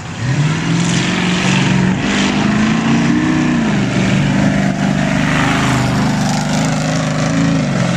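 Engine revving up for a take-off: it comes in hard just after the start, climbs in pitch about two to three seconds in and runs high and steady, then eases back a little near the end.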